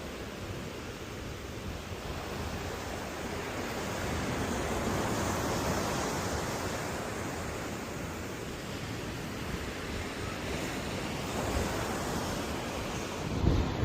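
Steady rushing of surf and wind, swelling about five seconds in, with a brief low thump near the end.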